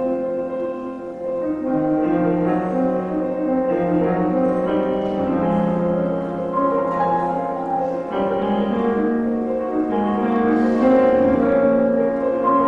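Solo piano playing a slow, sustained prelude, the notes held and overlapping.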